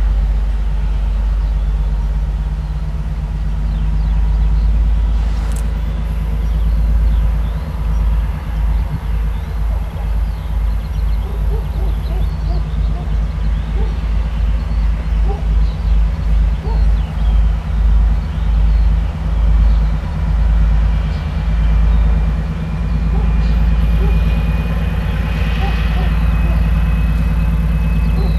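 2M62 diesel freight locomotive approaching slowly, its two-stroke V12 diesel engines running with a deep drone that throbs about once a second through the middle. A faint high whine rises slightly near the end.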